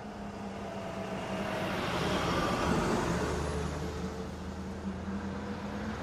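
A road vehicle driving past: it grows louder to a peak about three seconds in and then fades, its engine note dropping in pitch as it goes by, over a steady low traffic hum.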